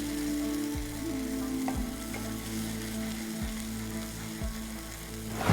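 Blended onion, ginger and garlic paste sizzling steadily in hot oil in a pan as it cooks down and its liquid evaporates, with a few light scrapes of a spoon stirring it.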